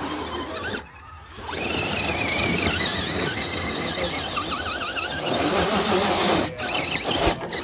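RC rock crawler's electric motor and gears whining, the pitch wavering up and down as the throttle is worked. The whine climbs to a high, steady pitch about five and a half seconds in, then cuts off a second later.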